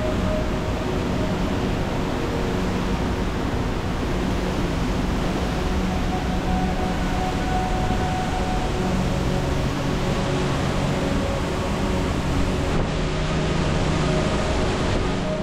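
Steady roar of a waterfall, a dense rush of falling water that does not let up.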